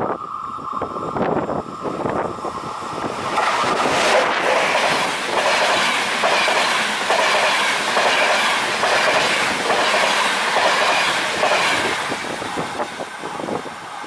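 Passenger train passing at speed close by: loud rushing noise of the coaches with a rhythmic clatter of wheels over the rails, building about three seconds in and easing off near the end. A steady high ringing tone comes before the train arrives.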